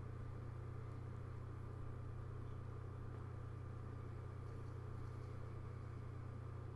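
A steady low hum with a faint hiss over it and a thin, high steady tone, unchanging throughout: the background noise of the recording between narrated lines.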